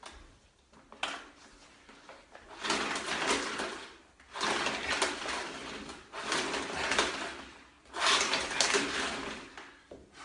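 Four bursts of rustling, clattering handling noise, each about a second and a half long, after a single click about a second in, as a vacuum cleaner is fiddled with but does not start.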